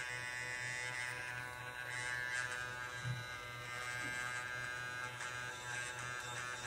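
Small DC motor in a homemade aluminium-tube mini grinder running steadily at free speed with nothing on its bare shaft, a steady electric whine. This is the first test run after wiring, and the motor is working properly.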